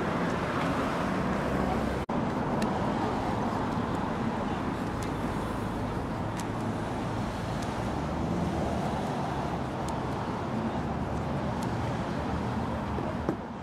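Steady street traffic noise with indistinct background voices, briefly cutting out about two seconds in.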